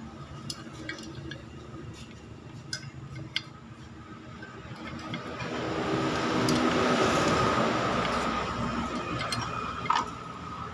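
Scattered light metallic clicks and clinks of a combination wrench working a bolt on a motorcycle cylinder head. A broad rushing noise swells up in the middle and fades again.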